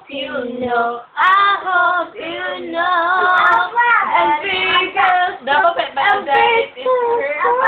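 A high voice singing a Tagalog love song, one sung phrase after another with little or no instrumental backing.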